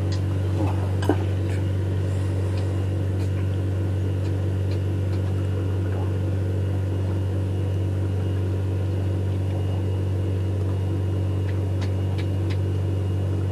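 Steady low mechanical hum of a running motor, even and unchanging throughout, with a few light knocks about a second in while the landed carp is handled in the net.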